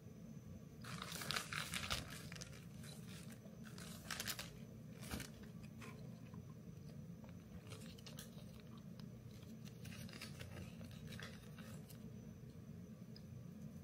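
Crinkly packaging being handled: short bursts of crinkling and rustling, the loudest about a second in, with a cluster of small clicks and rustles later, over a low steady hum.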